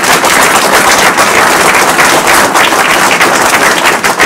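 Small crowd of people clapping loudly, a dense run of sharp hand claps close to the microphone.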